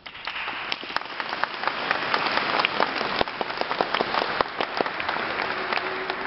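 Audience applause that breaks out suddenly and keeps going, a dense patter of many hands clapping.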